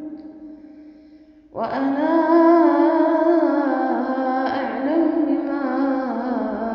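A woman's voice reciting the Quran in a melodic, chanted style. It holds long drawn-out notes: one note fades out in the first second and a half, and after a short gap a long, wavering held note begins.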